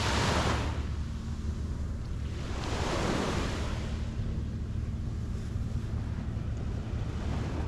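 Sea waves washing onto a sandy beach, two swells about three seconds apart, over a steady rumble of wind on the microphone.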